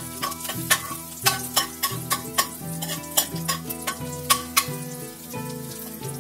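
Chopped onion and garlic sizzling in oil in a metal wok while a metal spoon stirs them, giving repeated irregular clinks and scrapes against the pan.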